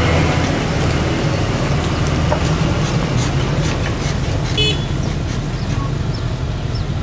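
Diesel engine of a heavily loaded cargo truck running as it pulls slowly through a soft mud road, a steady low rumble that eases off slightly as the truck moves away. A brief high toot sounds about four and a half seconds in.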